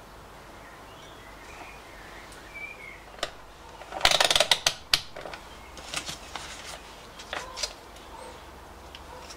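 Sharp clicks and clatter of tools and parts being handled on a workbench, densest and loudest about four seconds in, with scattered clicks after. Faint bird chirps sound in the background early on.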